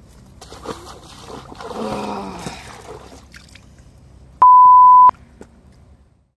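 A loud, steady, high beep tone lasting under a second, about four and a half seconds in. It is an edited-in bleep.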